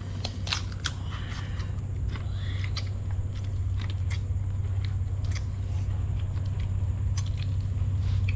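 Crab shells being cracked and chewed, heard as scattered sharp clicks and crunches over a steady low hum.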